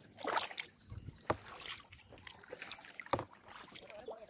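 Kayak paddles dipping and splashing in the water, a few irregular strokes.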